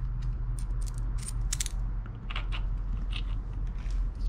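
Small metal clicks and clinks, a dozen or so at irregular intervals, as the rod end of a scooter steering damper is handled and fitted onto its mounting bolt, over a steady low hum.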